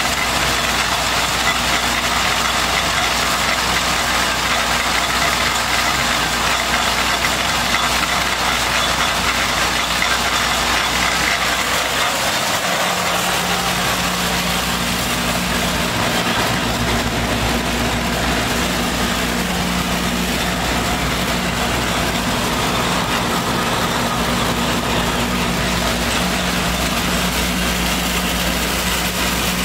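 Animal-feed pellet mill running steadily, a loud continuous machine hum and rumble; a lower steady tone joins in about halfway through.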